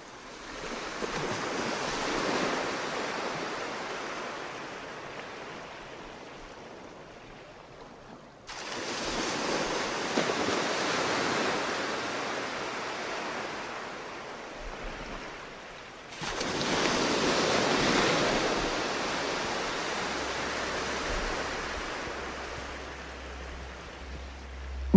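Sea waves washing and breaking, swelling and fading in long surges. The sound comes in three stretches joined by abrupt cuts, about a third and two thirds of the way through.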